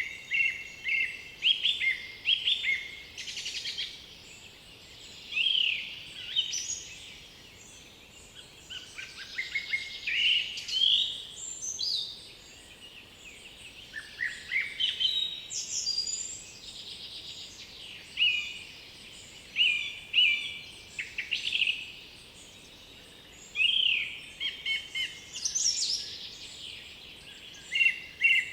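Several songbirds singing over a faint steady background: overlapping phrases of high whistles, quick sweeps and trills, following one another with short pauses.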